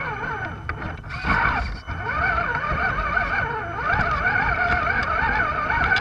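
RC scale crawler's electric motor and gearbox whining, the pitch wavering up and down with the throttle as it crawls slowly over rough ground and log steps.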